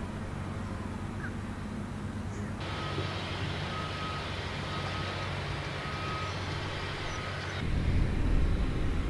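A vehicle's reversing alarm beeping about once a second over engine noise and hiss for about five seconds, with a low engine rumble before and after.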